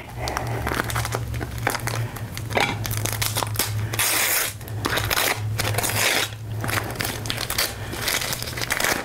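Cardboard box of frozen chopped spinach being torn open, its paper wrapping crinkling and tearing irregularly as the block is worked out onto a plate. A steady low hum runs underneath.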